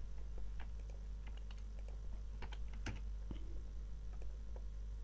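Scattered light clicks of a computer keyboard and mouse, a few irregular taps a second, over a steady low hum.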